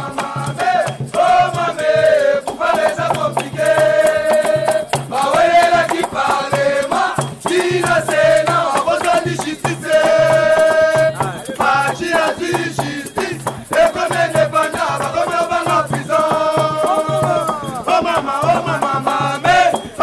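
Music: a singing voice over a steady shaker rhythm and a pulsing bass beat.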